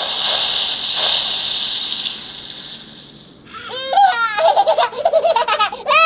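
A hissing noise that fades away over about three seconds, then the Eilik desktop robot's speaker plays a run of quick, high, chirping electronic giggles that glide up and down.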